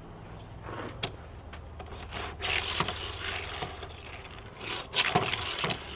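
A Hot Wheels die-cast toy car rolled across a surface, its small plastic wheels rolling and scraping in a few short passes, the longest about two and a half seconds in and the loudest about five seconds in.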